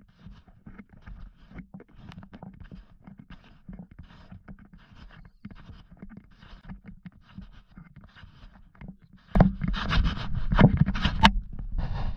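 Faint scattered ticks and rustling, then from about nine seconds in loud scraping and knocking right on the body-worn camera's microphone as its wearer moves and the camera swings down toward the deck.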